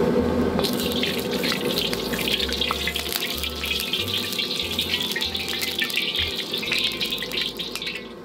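Hot cooking oil sizzling and crackling in a smoking-hot wok as it is swirled to coat the pan, starting just under a second in and stopping just before the end.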